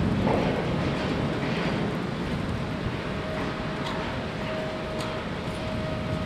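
Bergmann RPM 7700 Mobil-Jumbo roll-packer's machinery running steadily, with a thin steady whine that sets in about halfway through and a few faint clicks.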